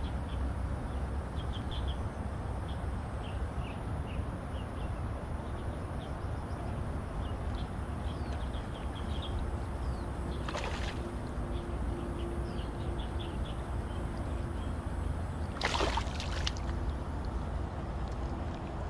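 A hooked fish splashes at the water's surface, briefly about ten seconds in and again, louder and longer, about sixteen seconds in as it is drawn to the bank. Small birds chirp faintly over a steady low rumble.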